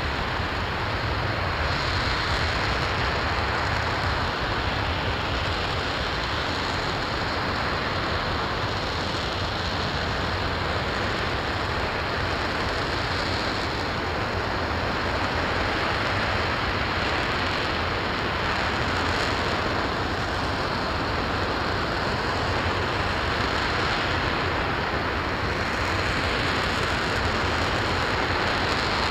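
Space Launch System RS-25 liquid-hydrogen, liquid-oxygen rocket engine running steadily on a static hot-fire test: a continuous, even rushing noise that neither rises nor falls.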